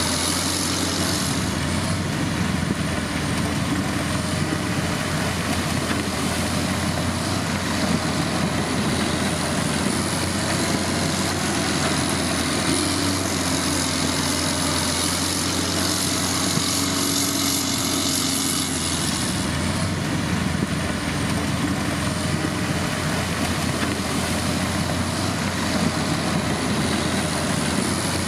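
Heavy road-construction machinery, a motor grader or road roller, with its diesel engine running steadily and a faint high whine that wavers in pitch.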